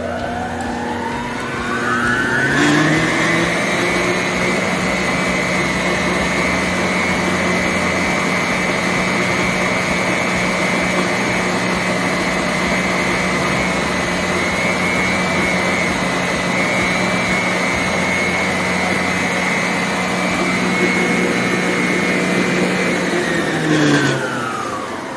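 Electrolux EKM3407R stand mixer running at speed 5 of 6: its motor whine rises over the first couple of seconds, holds a steady high-speed whir, then winds down with a falling whine near the end. Loud, about 82 dB on a sound level meter at 30 cm.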